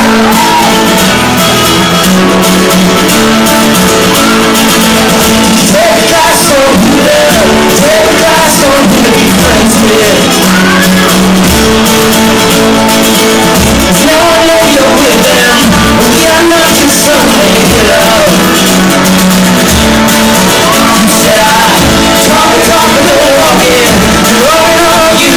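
Live band playing loud: strummed acoustic guitars and drums under sung vocals, with the reverberation of a large room.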